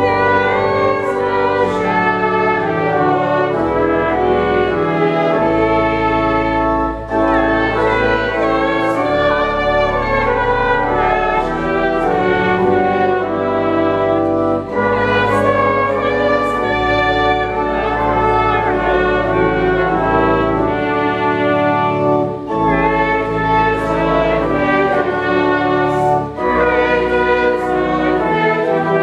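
Church organ playing slow, held chords, with the notes changing every second or so.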